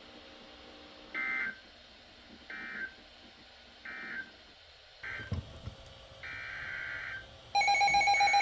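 Short bursts of SAME digital data tones from a NOAA Weather Radio alert: three brief bursts about 1.4 s apart, then a shorter one and a longer one, over faint radio hiss. About 7.5 seconds in, the loud steady Emergency Alert System attention tone begins, signalling that a new warning is coming.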